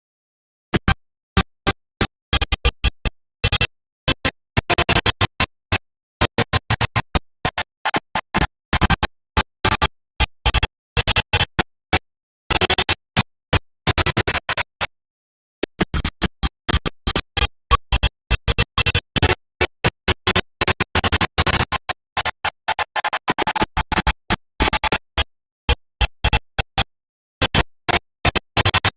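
Online slot game's electronic music and sound effects, stuttering: chopped into many short, irregular fragments with dead silence between them.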